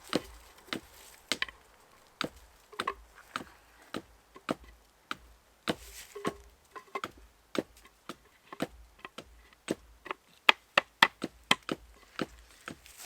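Repeated sharp strikes of a blade chopping wood, irregular at first and coming faster and louder, about three or four a second, near the end.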